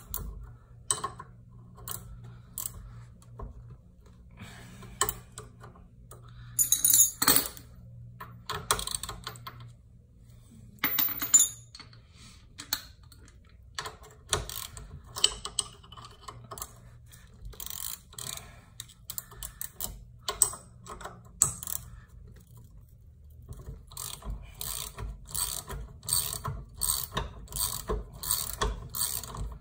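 Hand ratchet wrench clicking in short runs as a bolt on a golf cart's front suspension is undone, with a few louder metal clanks about seven and eleven seconds in. A steady low hum runs underneath.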